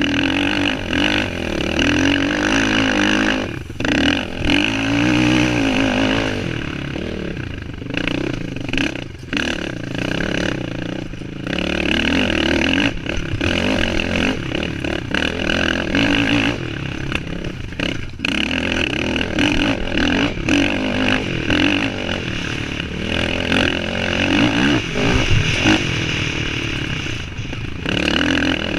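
Suzuki LT-R450 quad's single-cylinder four-stroke engine revving hard at racing pace, the engine note rising and falling as the rider works the throttle, with brief drops in level several times.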